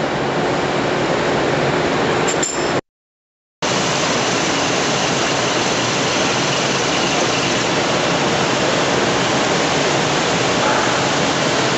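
Centerless grinder running: a steady, even rushing noise. It cuts out abruptly for under a second about three seconds in, then carries on unchanged.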